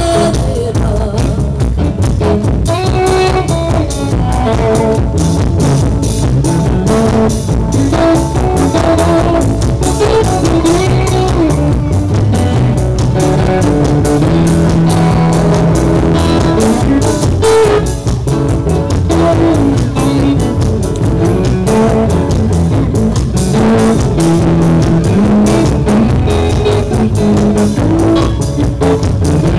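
A live band playing an instrumental passage on electric guitar, a second guitar and upright double bass, with a steady beat.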